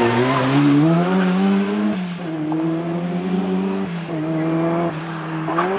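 Rally car engine pulling hard under full throttle, its pitch climbing in each gear and dropping sharply at two upshifts about two seconds apart.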